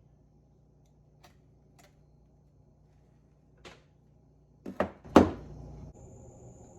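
A few faint clicks over a low hum, then three sharp knocks in quick succession about five seconds in, the last the loudest; a thin, steady high whine comes in near the end.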